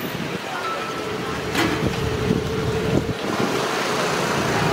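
Outdoor street noise: a steady rumble of road traffic with wind on the microphone, and a couple of short sharp knocks.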